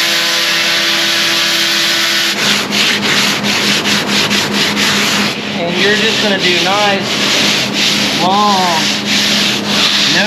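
A DeWalt angle grinder with a sanding disc runs steadily on the fiberglass for about the first two seconds, then stops. Hand sanding follows: a long sanding board is pushed back and forth over the fiberglass in rhythmic rasping strokes. In the second half some strokes squeak, rising and falling in pitch.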